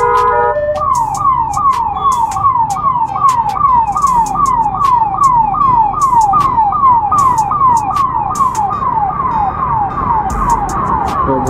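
Ambulance siren sounding loud and close. About half a second in it switches from a steady tone to a quick falling wail that repeats evenly, a little over two sweeps a second.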